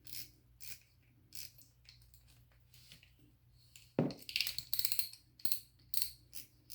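CNC aluminium spinning reel being handled, giving off a few slow mechanical clicks. About four seconds in there is a sharp knock, then a quick run of clicks and rasps from the reel's mechanism.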